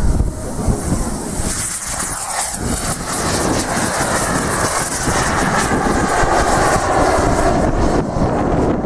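Turbine engines of radio-controlled Sukhoi Su-27 Flanker scale model jets at takeoff power as the jets lift off the grass strip and climb away: loud, steady jet noise with a strong hiss.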